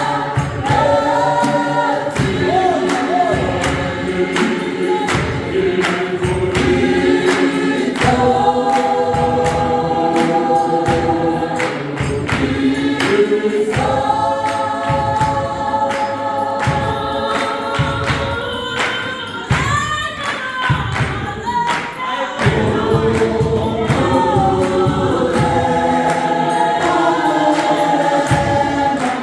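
Gospel choir singing in several-part harmony, with a steady beat of sharp hand claps running under the voices.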